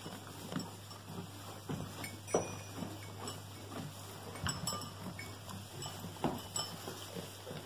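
Goats feeding at a wooden hay rack: hay rustling and irregular clicks and knocks as they pull at it, a few sharper knocks standing out.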